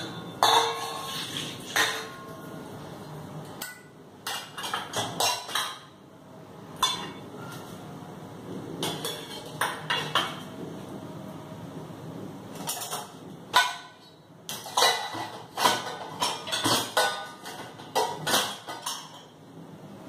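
Stainless steel dishes and pots clattering and clinking as they are set into the wire racks of a dishwasher: irregular knocks, some with a short metallic ring.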